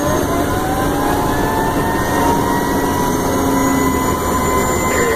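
Engine and road noise inside the cab of an emergency vehicle running to a call, with a siren's wail gliding slowly up in pitch.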